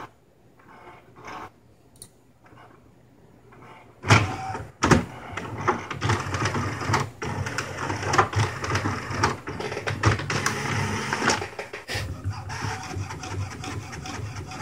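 An old HP inkjet printer starts with a loud clunk about four seconds in, then runs steadily with many quick clicks as it feeds paper and prints.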